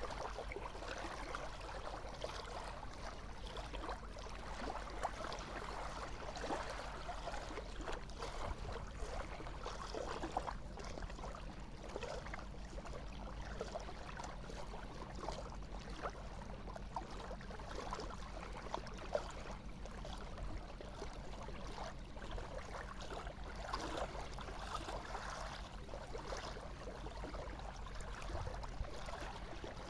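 Seawater lapping and gurgling close by, with many small splashes and crackles at a steady level and no large waves breaking, over a steady low rumble.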